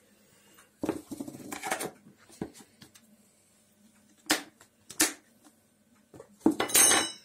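Kitchen utensils and dishes being handled on a table: a few scrapes and rustles about a second in, two sharp clicks a little past the middle, then a louder clatter with a brief high metallic or glassy ring near the end.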